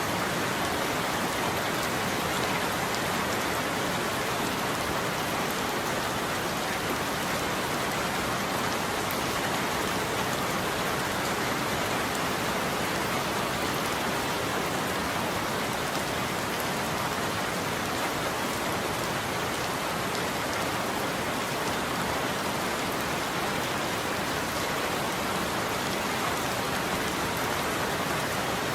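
Steady heavy rain falling and pattering on a surface, an even hiss with fine drop ticks and no thunder.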